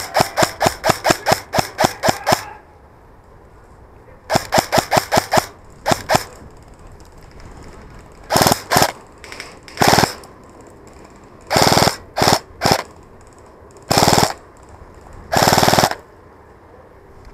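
Airsoft electric rifle firing: a rapid string of single shots, about five a second, for the first two and a half seconds, a shorter string about four seconds in, then a run of short full-auto bursts.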